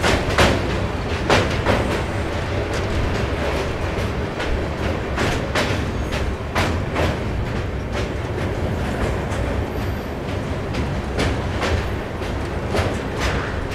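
LHB passenger coach running at speed: a steady rolling rumble, with wheels clacking over rail joints in quick pairs every second or few seconds.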